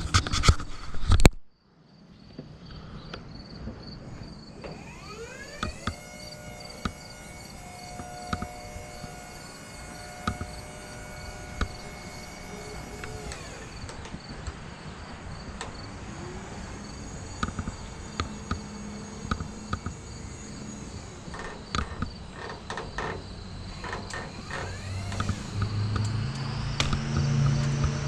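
Crickets chirping steadily while a boom lift's electric hydraulic pump whines up in pitch, holds steady for several seconds, and stops, as the boom is moved. It starts again twice more. A few sharp knocks come in the first second, and a low hum builds near the end.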